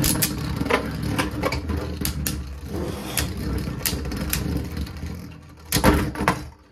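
Two Beyblade Burst spinning tops whirring in a plastic stadium bowl, with a steady hum and many sharp clacks as they strike each other and the walls, and a louder clatter near the end.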